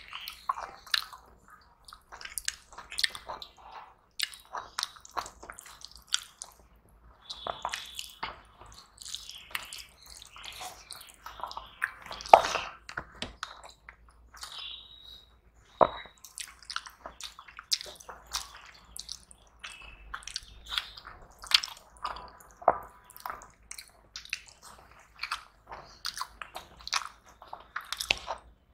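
Eating by hand: fingers squishing and mixing rice with curry on steel plates, with wet chewing and lip smacks in irregular short bursts.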